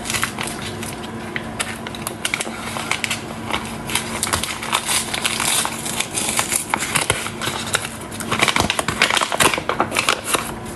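Irregular clicks, crackles and rustles of things being handled and moved, over a steady low hum.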